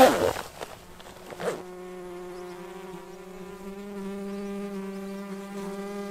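Jacket fabric rustling as a jacket is pulled on, then, from about one and a half seconds in, a steady buzzing hum on one held pitch.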